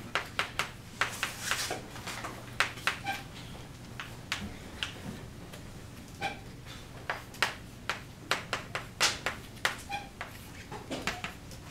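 Chalk tapping and scraping on a blackboard in an uneven run of short, sharp strokes as a formula is written by hand, a few strokes giving a brief squeak.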